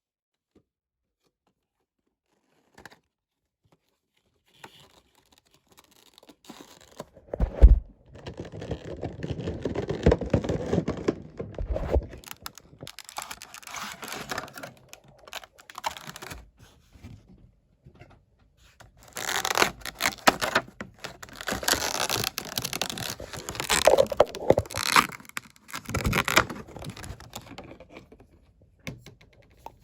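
Funko Pop box being handled and opened: cardboard and plastic packaging scraping, crinkling and tearing in irregular bouts, with a sharp knock about seven and a half seconds in.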